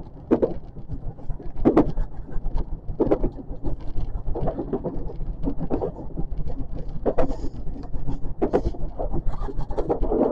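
JR West 521 series electric train running along the line: a steady low rumble with many short knocks, the loudest coming about every second and a half.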